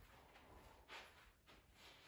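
Near silence: room tone, with two faint soft rustles, one about a second in and one near the end.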